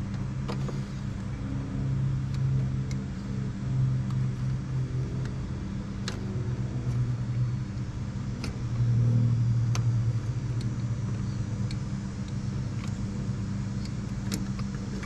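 An engine running steadily at a constant pitch, its sound swelling and easing a few times, with light metallic clicks from hands working on the throttle linkage.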